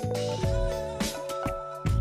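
Background music with a steady beat: held chords over a bass line, with drum hits.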